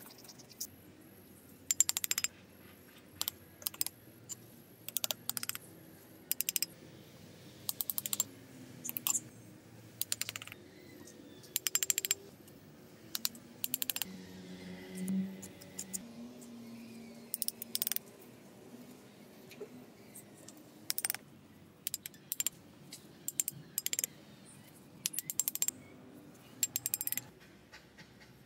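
Small masonry trowel clinking and scraping on miniature bricks and mortar: sharp metallic taps in irregular clusters as bricks are set and tapped into place.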